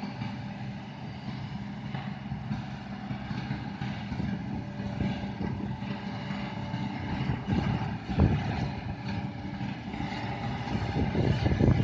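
Heavy diesel engine of a Kobelco SK200 excavator running steadily. A few louder knocks and thumps come in from about seven seconds in, the loudest near the end.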